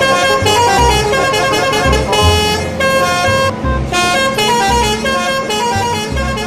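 Bus telolet multi-tone horn playing a quick melody of short honked notes over a steady dance beat.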